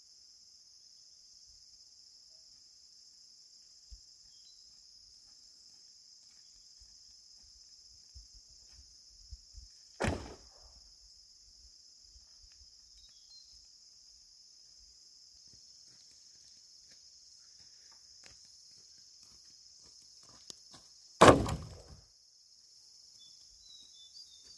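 Steady high insect chirring, broken by two loud, sharp knocks: one about ten seconds in and a heavier one about twenty-one seconds in that rings on briefly.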